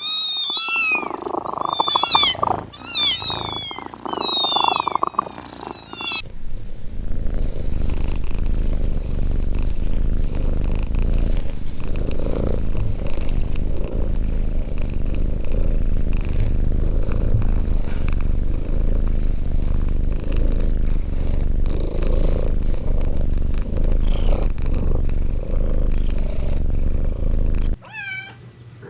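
Kittens mewing in rapid, high, squeaky calls for about six seconds, then a cat purring steadily at close range for about twenty seconds.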